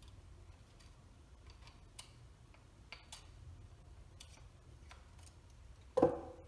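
Faint metallic clicks and ticks of a piston compression ring being spread with ring expander pliers and worked onto an aluminium piston, scattered a few at a time. About six seconds in, a single louder dull knock as the pliers are set down on the bench.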